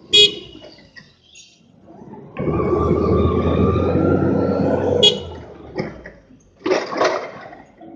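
Forklift truck from the cab: a short, loud toot near the start. Then about three seconds of loud, steady motor and hydraulic running with a slowly rising whine as the controls are worked, ending in a second brief toot. A short clatter follows near the end.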